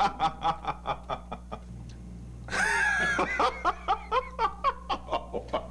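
Several men laughing, in rhythmic ha-ha pulses about four a second, with a louder vocal outburst of laughter about two and a half seconds in.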